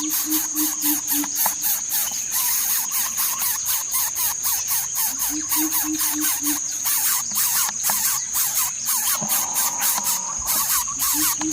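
Steady chirring of crickets or other insects, a continuous high whine with rapid pulsing. A low run of about five quick hoots comes three times: at the start, in the middle and near the end.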